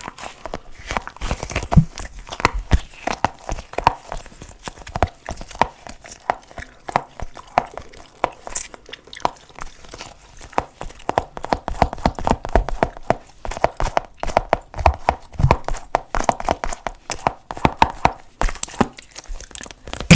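Close-miked sticky ASMR "globbles": a dense, irregular run of wet clicks, crackles and peeling sounds with no break.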